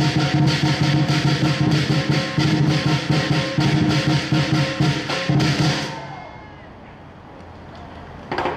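Lion dance percussion: a big drum beating fast under clashing cymbals. It stops about six seconds in, and after a short lull it starts again just before the end.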